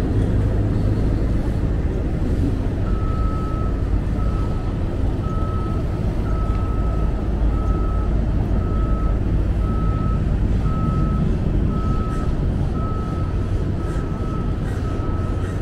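A vehicle's reversing alarm beeping: one pitch, evenly spaced beeps a little under two a second, starting about three seconds in. Under it, a steady low engine rumble.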